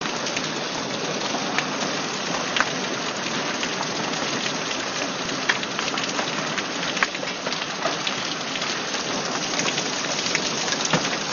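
Steady rain falling, with scattered sharp taps of drops landing close by.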